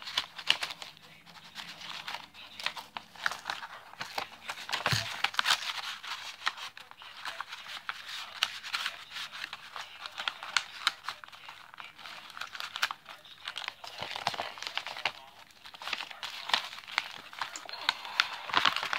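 Packaging crinkling and rustling as it is handled, with many small irregular clicks and crackles.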